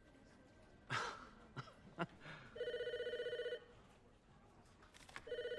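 Desk telephone ringing twice, a fast-warbling electronic ring about a second long each time, the rings about two and a half seconds apart. A short burst of noise about a second in and a couple of clicks come before the first ring.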